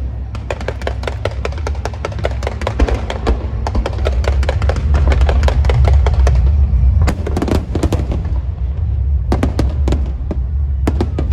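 Strings of firecrackers crackling in dense rapid runs, dying down in the middle and starting up again in bursts near the end, over a steady low rumble with drum-led procession music.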